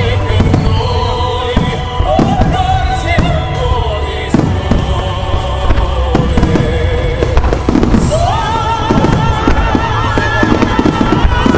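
Fireworks bursting in quick, irregular succession, many bangs throughout, over loud music with long, wavering held notes.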